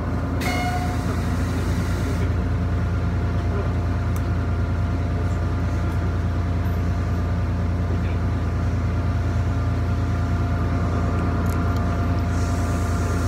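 Diesel railcar standing at a station with its engine idling: a steady low hum inside the passenger car. A brief hiss about half a second in, fading after about two seconds.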